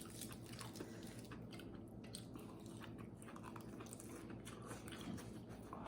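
A person chewing food, faint and close, with many small irregular crunches and clicks.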